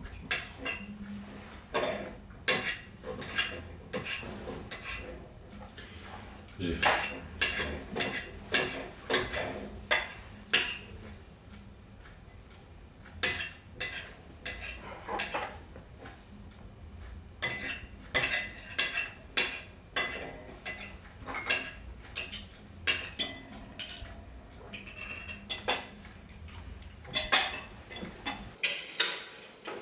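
Cutlery clinking and scraping against plates and dishes during a meal, in irregular bursts of short, sharp clinks.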